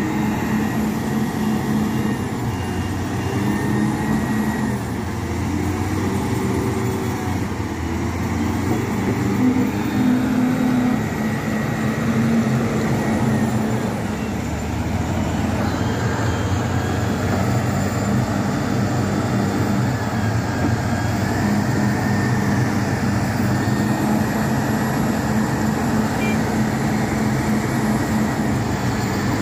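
LiuGong 4180D motor grader's diesel engine running steadily close by, its pitch shifting a little as the operator works the machine to free its blade from the loose murum soil it is stuck in.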